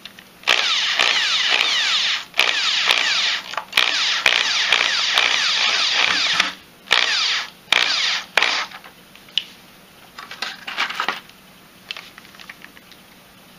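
Corded electric drill with a driver bit driving deck screws into a pine board, running in a series of bursts with short stops between them. The drill stops about eight and a half seconds in, followed by a few light clicks.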